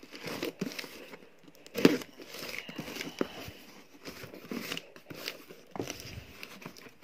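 A taped cardboard shipping box being handled and turned over, with irregular scraping, rustling and knocking of the cardboard and one louder knock about two seconds in.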